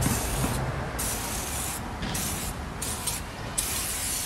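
Aerosol can of foaming tire cleaner hissing as it sprays onto a car tire's sidewall, in several bursts with short breaks between them.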